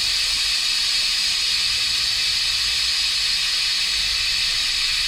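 Steady hiss of air venting from a truck's air-bag suspension as the rear is let down.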